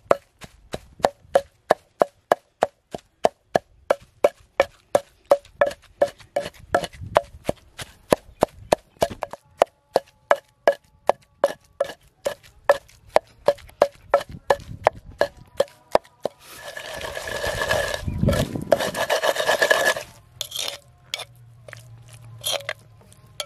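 Wooden pestle pounding mint chutney in a clay mortar bowl, about three hard knocks a second with a short ring. About two-thirds of the way in the knocking gives way to a few seconds of steady grinding rub against the clay. Near the end a spoon makes a few short scrapes in the bowl.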